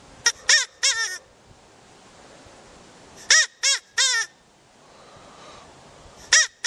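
Recorded rabbit calls: three short, high cries in quick succession, a second group of three about three seconds later, and another group starting near the end, each cry rising and falling in pitch.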